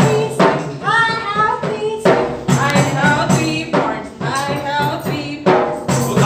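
A song playing, with singing over a steady percussion beat of about two beats a second.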